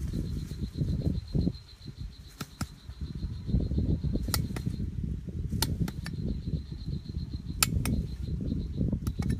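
Steel cleaver blade shaving and knocking against a thin bamboo stick on a rotten log. A low scraping rustle runs under sharp, irregular clicks, some in quick pairs.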